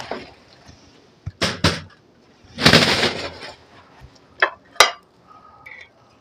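Metal clatter from handling a smoker and grill tools. There are two quick knocks about a second and a half in, then a longer scraping rattle around three seconds, then two sharp clicks near five seconds.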